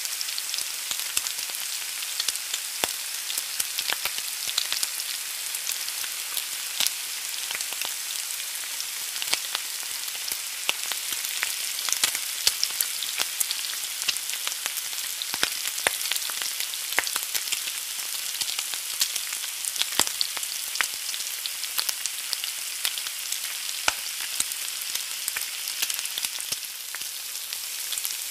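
An egg frying in a hot pan: a steady sizzle with frequent small pops and crackles.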